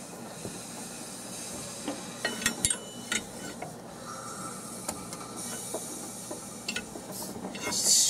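Chevy 350 small-block V8 turned over by hand with a breaker bar on the harmonic balancer: air hisses out of the cylinders as each comes up on compression, with a few sharp metallic clicks from the bar and balancer bolts about two to three seconds in. The hiss, likened to a turbo, is the sign of strong compression with the new double roller timing chain fitted.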